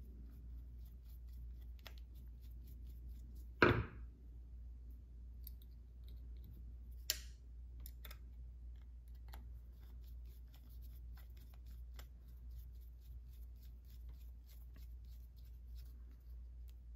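A screwdriver turning small screws into a Walbro HD carburetor's aluminum body, with faint scattered metal clicks and scrapes over a low steady hum. One louder knock comes about three and a half seconds in, and a sharp click around seven seconds.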